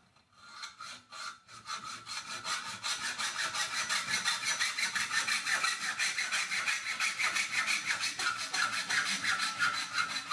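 Hacksaw with a fine 32-teeth-per-inch blade cutting thin sheet-steel trunking lid clamped in a bench vise, in quick, even back-and-forth strokes. It starts with a few light strokes and settles into a steady rhythm after about two seconds.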